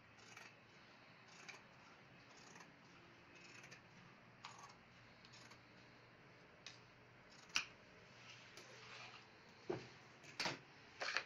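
Large brass-handled tailor's shears cutting through cloth: faint, regular snips about once a second, with a few sharper clicks near the end.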